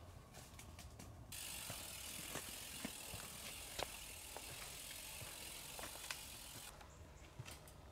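Mountain bike freewheel hub ticking as the bike coasts along a dirt trail, with a few sharp clicks and knocks. The ticking starts about a second in and stops shortly before the end.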